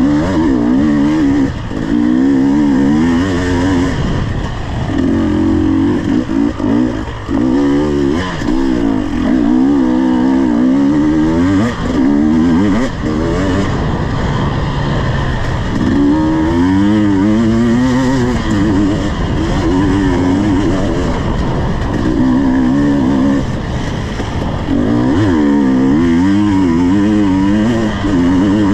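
KTM 250 EXC two-stroke enduro motorcycle engine being ridden hard, its revs rising and falling again and again as the throttle opens and closes, dropping off briefly a few times.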